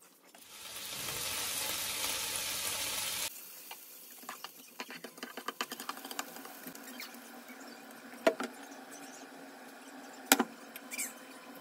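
Bacon frying with butter in a nonstick pan. A loud sizzle builds over the first half-second, holds for about three seconds and cuts off suddenly. Then a quieter crackle and spitting carry on, with two sharp clacks of the spatula against the pan about two seconds apart.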